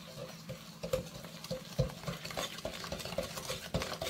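Wire whisk beating margarine, sugar and eggs in a glass mixing bowl, the wires scraping and clicking against the glass in quick, even strokes, about three a second.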